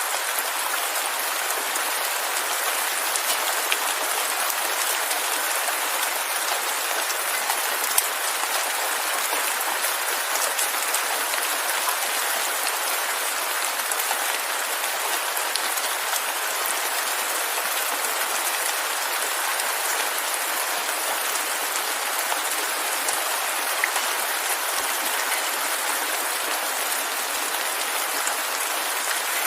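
Steady rain: a dense, even hiss of falling drops with no rumble beneath, broken now and then by a sharper single drop tick, clearest about eight seconds in and again near twenty-four seconds.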